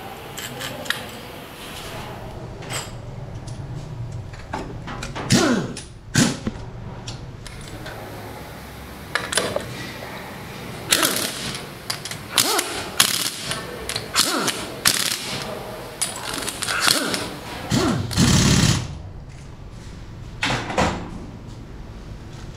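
A handheld power nut runner driving bolts into an aluminium motorcycle crankcase in short runs, some winding down in pitch as the tool stops. Metal bolts clink between runs over steady workshop background noise.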